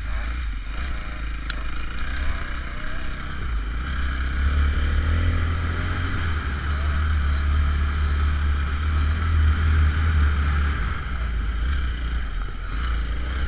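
Motocross bike engine running at speed, its pitch rising and falling with the throttle, heard from an on-bike action camera with heavy wind buffeting on the microphone.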